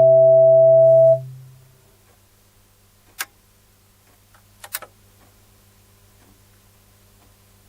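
The final held chord of a recreated municipal disaster-prevention radio chime, steady electronic tones that fade out about a second in. Then only a faint low hum, with two sharp clicks about three and four and a half seconds in.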